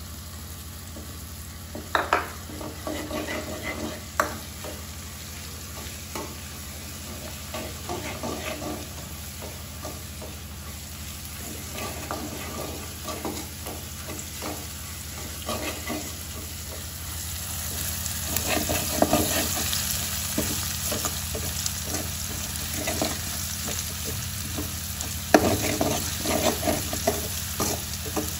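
Sliced onions with tomato, ginger and cumin sizzling in oil in a stainless steel kadhai, stirred with a metal ladle that scrapes and clicks against the pan. The sizzle gets louder a little past halfway, with a few sharper knocks of the ladle on the pan's side.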